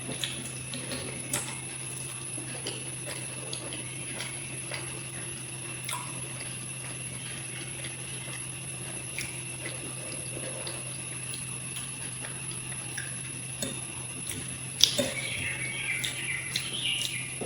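Eating sounds from a meal of water rice: small clinks of a plate and cutlery and the swish of water, over a steady electrical hum. A sharp clink about 15 seconds in is the loudest sound, and birds chirp after it.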